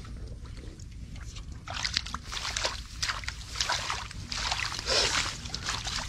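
Hands digging in wet mud and straw at the edge of a mud hole: irregular squelching, sloshing and rustling that starts about two seconds in and comes several times a second, over a steady low rumble of wind on the microphone.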